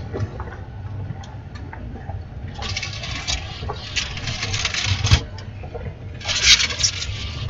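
Low steady rumble of a vehicle heard from inside the cab, with two stretches of noisy hiss, one about two and a half seconds in and one near the end, and a few sharp clicks.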